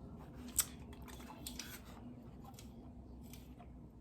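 Close mouth sounds of someone chewing crispy chicken wings: a few short sharp crunching clicks, the loudest about half a second in, over a faint steady hum.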